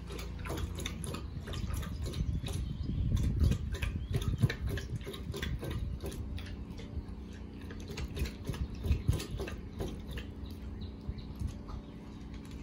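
A puppy lapping water from a stainless steel bowl: quick, repeated wet laps and splashes that stop near the end.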